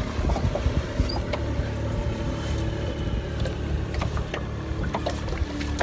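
Steady low rumble of a boat on open water, with a faint even hum and a few scattered light clicks.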